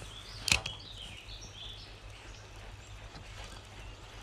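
Quiet creekside outdoor ambience with faint short bird chirps, broken about half a second in by a single sharp click from handling the spinning rod and reel.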